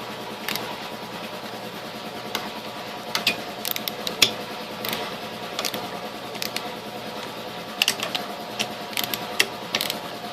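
Irregular light metallic clicks and clinks of a wrench snugging down the cylinder-head bolts on an air compressor pump, over a steady low hum.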